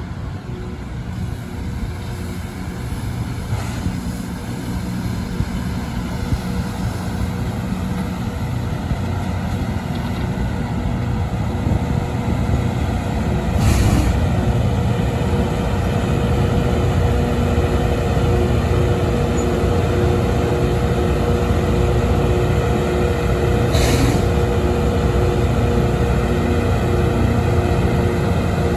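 Loram rail grinder train's diesel engines running loud, growing louder over the first half and then holding steady. Two short bursts of hiss, about halfway through and again near the end.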